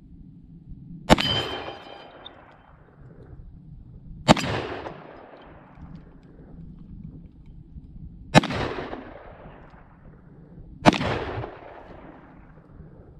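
Four shots from a stainless Ruger Redhawk revolver, spaced a few seconds apart, each a sharp crack with a fading echo. The first shot is followed by a brief metallic ring.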